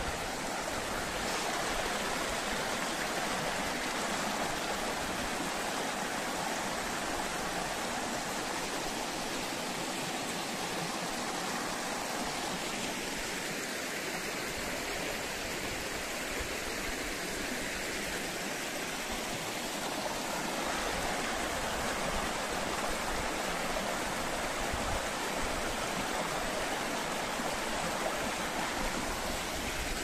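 Shallow rocky stream running over stones and small cascades: a steady, even rush and babble of water.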